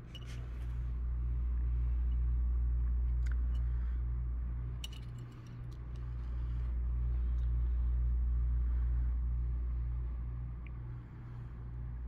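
A low, steady hum with a faint pulse about twice a second, swelling and fading slowly, with a few faint clicks.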